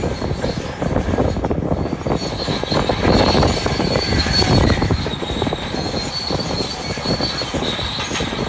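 Crawler bulldozer working, its steel tracks clattering and clanking continuously over a steady engine noise, with a thin high-pitched squeal running through it.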